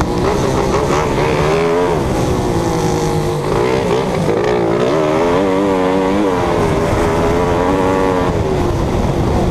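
Engine running under varying throttle, its pitch repeatedly rising and falling, with rushing wind and noise underneath.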